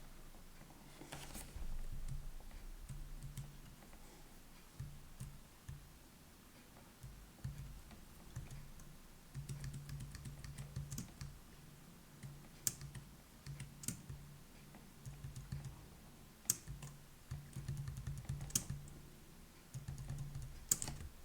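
Typing on a computer keyboard: irregular keystrokes in short runs, with a few louder single clicks.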